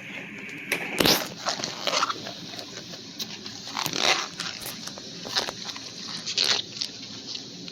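Rubber bladder of a cut-open volleyball being handled and turned inside out: irregular rubbing and scraping, with a few louder scuffs.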